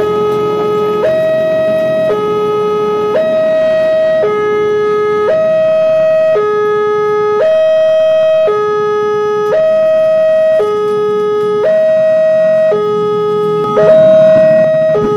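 Railway level-crossing warning alarm sounding two alternating electronic tones, high then low, switching about once a second, as the barrier comes down for an approaching train. It swells louder briefly near the end.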